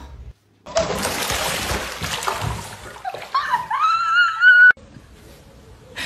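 Water splashing loudly in a bathtub for about two seconds. Then a high cry rises in pitch, holds, and breaks off suddenly.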